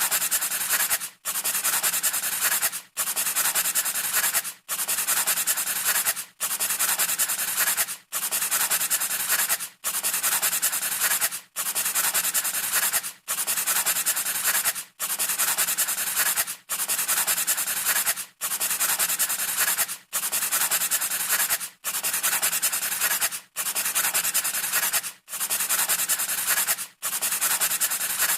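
Scratchy rubbing noise in long even strokes of about a second and a half, each broken off by a short gap, repeating at a steady pace like a looped sound effect.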